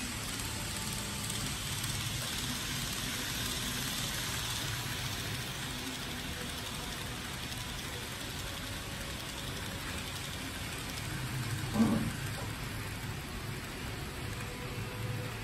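N-scale model train, a KATO Shinkansen 100 series, running on the layout track: a steady rushing noise of wheels on rail with a low motor hum. A single brief knock about twelve seconds in.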